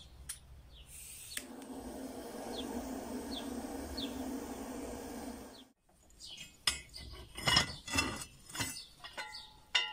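A handheld gas torch clicks, then burns with a steady hiss for about four seconds as it lights firewood in the stove's firebox, cutting off suddenly. Then cast-iron stove-top rings clank and ring several times as they are lifted off with a hook.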